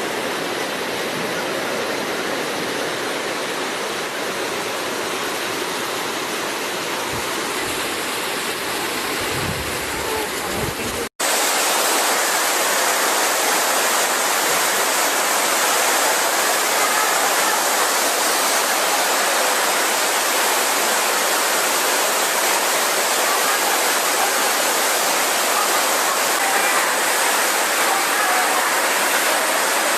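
Steady, loud rush of water with no break in it except a momentary dropout about 11 seconds in, after which it carries on a little louder.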